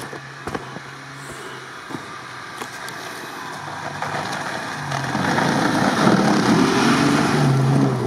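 Mitsubishi Pajero II off-roader's engine pulling through deep snow as it comes close and passes, getting louder from about five seconds in and revving up near the end, with the tyres churning snow.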